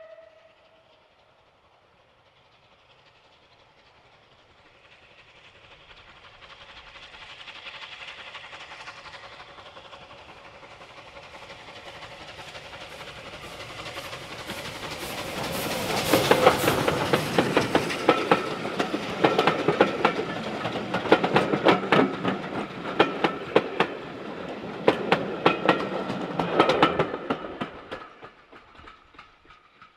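Steam-hauled train passing close by. It builds slowly as it approaches, then its wheels clatter rapidly over the rail joints for about ten seconds before it quickly fades away.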